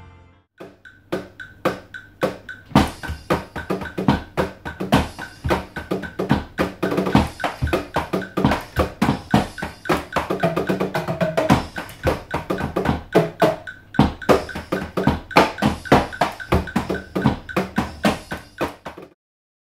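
Millennium MPS-850 electronic drum kit played with sticks: a continuous drum groove of quick hits that starts about half a second in and cuts off suddenly shortly before the end.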